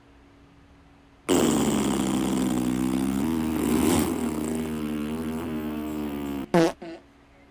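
A long fart with a steady buzzing pitch, lasting about five seconds, then two short higher ones that drop in pitch near the end.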